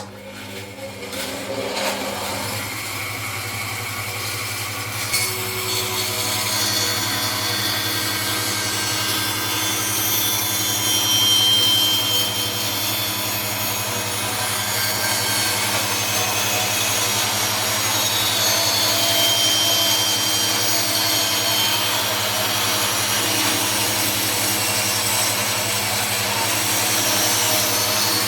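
Bandsaw starting up and running steadily, its blade cutting a 100 mm circle in wood as the workpiece turns on a circle-cutting jig's pivot pin.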